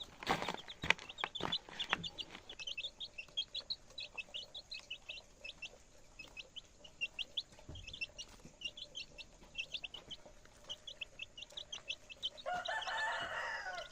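Chicks peeping over and over in short high notes while they feed, with a few sharp knocks in the first two seconds. Near the end a longer, lower clucking call from a hen joins in.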